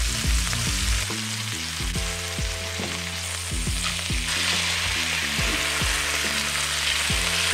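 Partridge breast fillets sizzling in hot oil in a frying pan, a steady hiss that swells a little about four seconds in.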